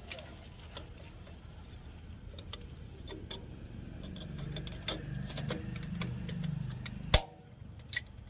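Hands working the oil cup at the bottom of a transformer's silica gel breather: scattered small clicks and taps of plastic and metal parts, a low muffled sound from about four to seven seconds in, then one sharp loud click and a smaller one just after.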